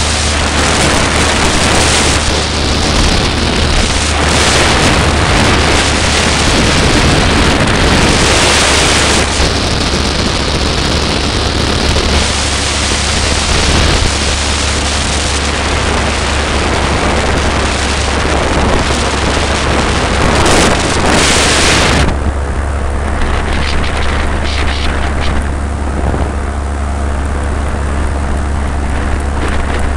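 Paramotor engine and propeller running at a steady drone, with heavy wind buffeting on the microphone in flight. The hiss of the wind eases about two-thirds of the way through while the engine drone carries on.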